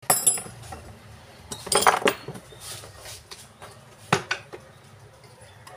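Metallic clinks and taps of a screwdriver against the metal body of a Hilti demolition hammer held in a bench vise. There is a quick burst right at the start, a cluster about two seconds in, and one sharp clink about four seconds in.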